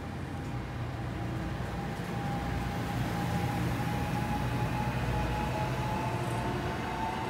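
NJ Transit Arrow III electric multiple-unit train running past the station platform: a steady rail rumble with a thin motor whine that climbs slightly in pitch and grows a little louder midway.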